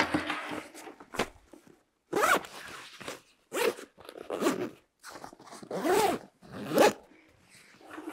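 Hook-and-loop (Velcro) flap inside an Eberlestock FAC Track V3 backpack being peeled open in a series of short ripping pulls, about five of them.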